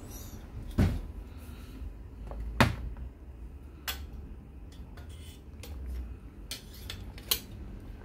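Sheet-metal hard drive mounting bracket clinking and clicking in the hands as a hard drive is fitted into it: a handful of sharp metallic clicks, the loudest about two and a half seconds in.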